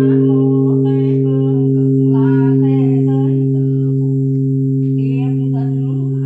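Large Buddhist pagoda bell ringing on after a strike, its low tones held steady and loud. Over it a voice chants in phrases, with pauses at about a second in and near the middle.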